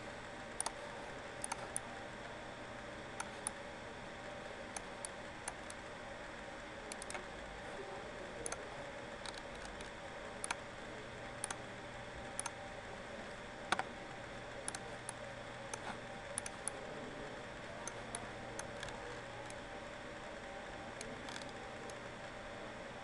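Computer mouse clicks, scattered and irregular, several in quick pairs, over a steady background hum.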